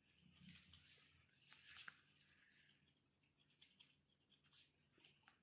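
Grooming scissors snipping quickly and repeatedly, several crisp snips a second, trimming the fur on a toy poodle's ear. The snipping stops near the end.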